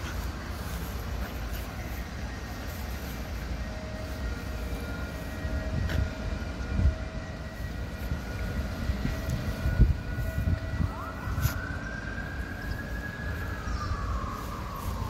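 Low rumble of distant traffic, with a few dull thumps and faint steady high tones. About two-thirds through, a long whine rises, holds, then slides down in pitch near the end.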